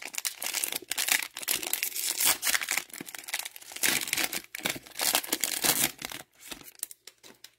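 Wrapper of a football trading card pack being torn open and crinkled by hand: dense, irregular crackling that thins out near the end.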